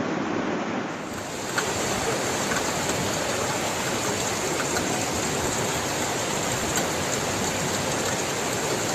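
Floodwater rushing in a steady torrent, with a short knock about a second and a half in.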